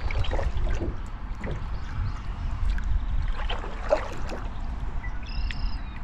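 Canoe paddle strokes dipping and pulling through the water, with trickling and gurgling from the paddle and the moving hull, over a steady low rumble. A short high whistling call sounds near the end.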